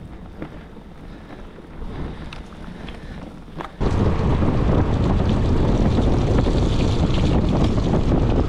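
Wind rushing over the microphone and tyres hissing on a wet road as a loaded touring bicycle rolls along. About four seconds in the rush jumps suddenly to a much louder, steady level.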